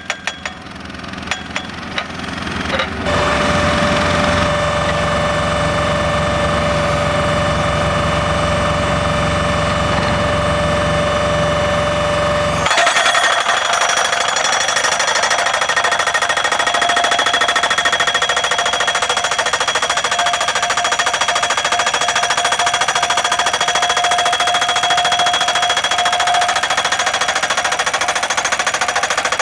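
Pile driver's impact hammer pounding a post into the ground with fast, continuous hammering. About 13 s in the sound changes suddenly, losing its low end and turning thinner and brighter.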